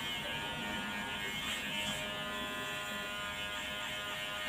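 Electric hair clipper running with a steady buzz as it trims the hair at the side of a man's head.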